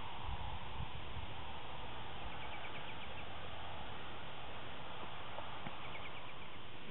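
Steady outdoor background noise with low rumbling wind on the microphone. A faint high chirping trill comes twice, a little over two seconds in and again near the end.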